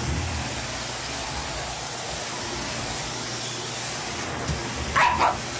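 Vacuum cleaner running steadily with a constant hum and whoosh of air. Near the end a short, loud outburst cuts over it.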